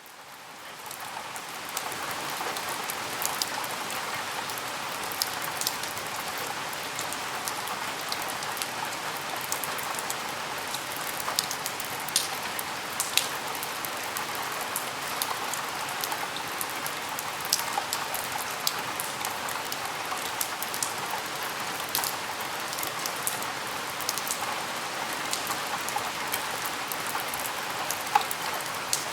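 Rain at a window: a steady hiss of rainfall with frequent sharp drop ticks scattered through it. It swells up over the first second or so, then holds steady.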